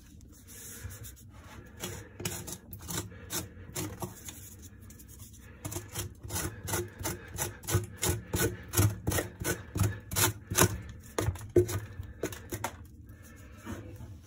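Something rubbed or scraped back and forth in short repeated strokes, sparse at first, then quicker and louder at about three strokes a second from about five seconds in, stopping shortly before the end.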